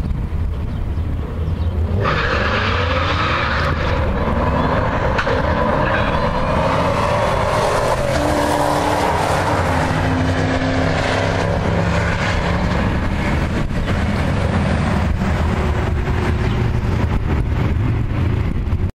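Drag race: a Ford Shelby GT500 Mustang's supercharged V8 and another car idling low at the line, then launching about two seconds in and accelerating hard down the quarter-mile. Engine pitch climbs and drops back at each gear change.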